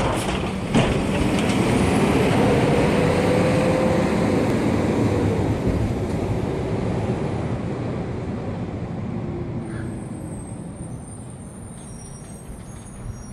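Mack automated side-loader garbage truck pulling away from the curb: a clunk about a second in, then the engine and drivetrain accelerating with a rising whine, the sound fading steadily as the truck drives off.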